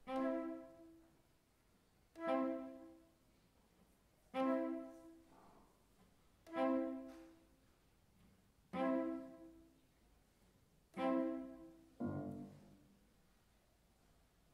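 Contemporary chamber music for cello and piano (with flute) played live: the same accented chord sounds six times, evenly spaced about two seconds apart, each dying away within a second. A different, lower chord follows near the end.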